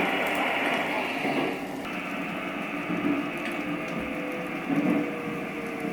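Train running sound effect of a JR East E233 series electric commuter train, a steady running noise that thins out about two seconds in. Near the end a single motor whine slowly falls in pitch, as the train slows.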